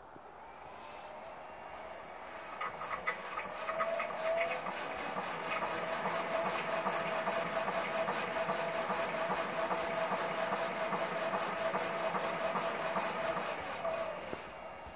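Shock dynamometer's electric motor winding up over a few seconds and then running steadily, cycling a bicycle front damper through a compression test with a steady whine and a fast regular clicking, before shutting down about fourteen seconds in.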